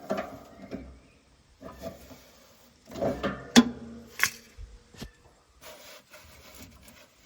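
Hands trying to unscrew a tight fitting on a gas heater's control panel: irregular rubbing and handling noises, with two sharp clicks about three and a half and four seconds in.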